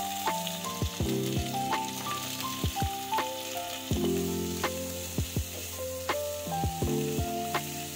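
Instrumental background music, a stepping melody over held chords with short falling beats, over a soft sizzle of onions, tomatoes, garlic, green chillies and cashews frying in a little refined oil in a non-stick karahi. A spatula stirs the pan near the end.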